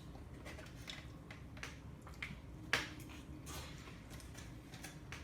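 Faint chewing and mouth clicks of a person eating cold spicy mixed noodles, with one sharper click a little before three seconds in.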